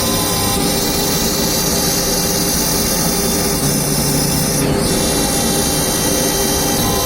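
CNC router spindle running as the bit cuts MDF: a steady whine over a continuous hiss, its tone shifting slightly a couple of times.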